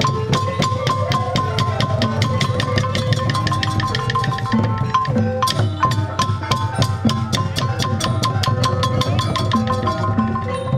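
Khmer chhayam procession music: long chhayam drums beaten by hand in a fast, steady rhythm of sharp strikes, under a wavering melody line.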